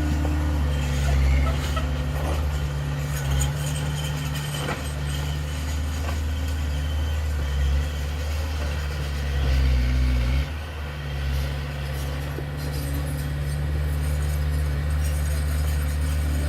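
Heavy diesel engine of earthmoving equipment running steadily, briefly dropping in level about ten seconds in, with a few faint knocks.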